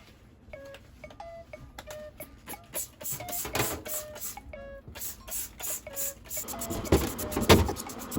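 Light background music of short plinking notes with clicks. From about six and a half seconds in, a rough rustling noise with a few sharp knocks joins it.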